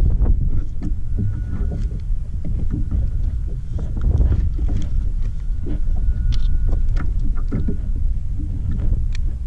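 Wind rumbling on the microphone over water sloshing against a plastic fishing kayak's hull, with scattered small clicks and knocks from handling the fishing gear.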